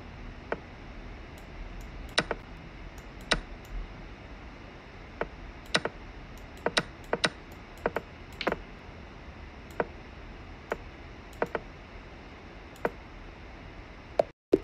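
About twenty quick, irregular clicks and knocks of fast online chess play: mouse clicks and the board's piece-move sounds as moves are made against a running clock.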